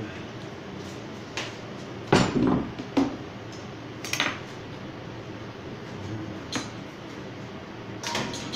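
Knocks and clatters of kitchen utensils, dishes and a knife on a cutting board during food preparation, over a steady background hum. The loudest clatter comes about two seconds in, and there are more knocks near the end.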